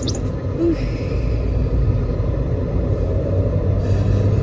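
Steady low rumble of a car heard from inside the cabin, engine and road noise.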